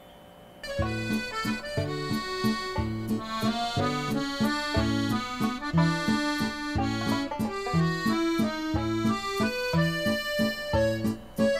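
Background music: a comical solo accordion tune with a melody over alternating bass notes and chords, starting just under a second in.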